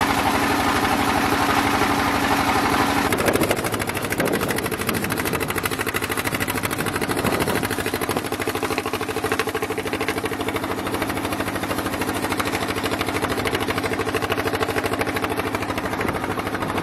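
Small fishing boat's engine running steadily as the boat moves under way, with a slight change in pitch about three to four seconds in.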